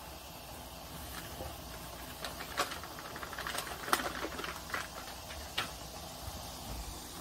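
Scattered light clicks and taps, most of them between about two and six seconds in, over a faint low hum.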